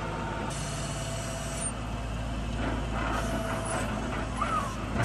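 Skid steer engine running steadily while its raised loader bucket tips and dumps a load of dirt, with a thin whine over the engine drone.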